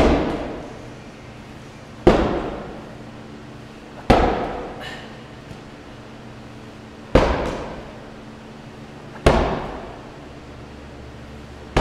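Medicine ball slammed hard onto artificial turf, a loud thud about every two to three seconds, each dying away in a short echo.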